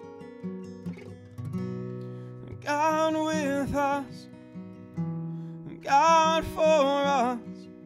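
Steel-string acoustic guitar picked steadily, with a man singing two held phrases of a worship song over it, the first about three seconds in and the second about six seconds in.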